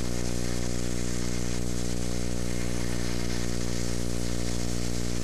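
Stick (shielded metal arc) welding on mild steel plate: the electrode's arc burning steadily as a bead is laid, an even hiss over a steady low hum.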